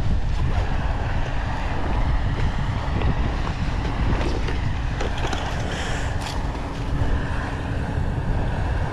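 Strong wind buffeting the microphone as a steady rough rumble, with a few faint clicks and handling knocks about halfway through.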